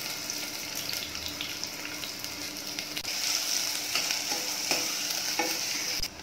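Sliced onions sizzling in hot oil in a pressure cooker, a steady hiss that grows louder about halfway through, with a metal spoon stirring and scraping against the pot a few times. The sound cuts off suddenly near the end.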